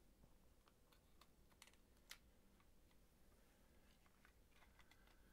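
Near silence broken by faint, scattered small clicks and taps as a precision screwdriver and a Game Boy Advance's plastic shell are handled.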